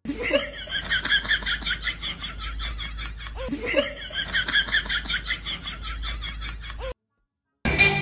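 High-pitched rapid laughter, the same laugh played twice in a row, cutting off suddenly about a second before the end.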